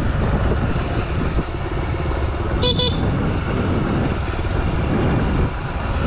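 Hero Xpulse 200's single-cylinder engine running as the motorcycle rides along, with wind rumble on the microphone. A short horn beep sounds about two and a half seconds in.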